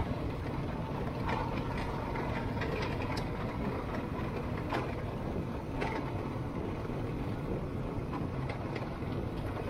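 Steady low rumble of a moving vehicle, with a few scattered knocks and rattles.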